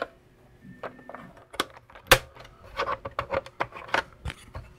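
Hard plastic clicks and knocks as the Tandy 102's compartment covers are handled and its plastic case is moved on the bench mat, a quick irregular series with the loudest knock about two seconds in.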